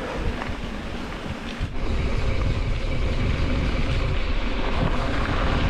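Wind buffeting the microphone: a loud, steady rush of noise with gusty rumbling at the low end, with a brief dip just under two seconds in.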